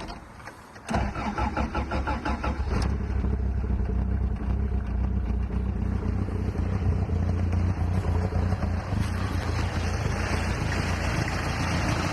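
Cold start of a Toyota 4A-GE four-cylinder on individual throttle bodies. About a second in the starter cranks for roughly two seconds, then the engine catches and settles into a steady idle; the owner finds it a little cold-blooded.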